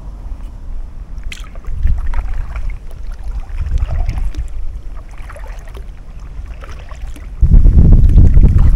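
Kayak paddle strokes, dipping and splashing on alternating sides about once a second, under wind buffeting the microphone. A strong gust about seven and a half seconds in makes the wind rumble the loudest sound.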